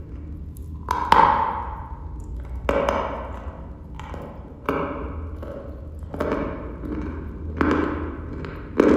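Dry chalk being bitten and chewed: six sharp crunches in a row, about one every one and a half seconds, each fading into grinding. The loudest crunch comes about a second in.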